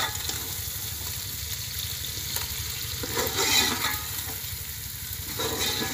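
Fish curry sizzling in an aluminium pot over a wood fire while a metal spoon stirs through it, the fish frying in its oily masala. Steady hiss and crackle, louder for a moment about three seconds in.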